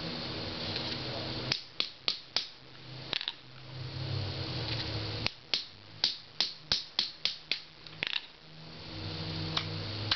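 Hammer blows on a steel pin punch set in a spark plug socket, driving the base socket out of a CDV-700 radiation probe housing. First comes a short group of about five strikes, then a run of about eleven strikes at roughly three a second.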